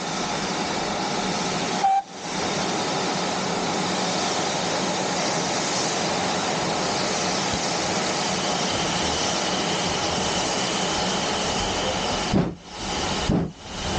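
GWR 5101-class large prairie 2-6-2 tank locomotive 4144 heard from the carriage behind it: a loud, steady hiss of steam, broken briefly about two seconds in. Near the end the hiss stops and the engine's exhaust beats begin, about two chuffs a second, as it works with steam spurting from the cylinder drain cocks.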